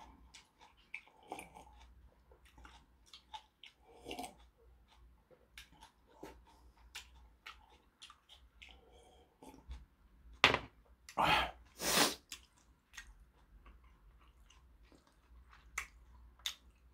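Close-miked mouth sounds of eating and drinking: sips from a cup, swallows and small wet clicks and smacks, with three louder, longer bursts about ten to twelve seconds in.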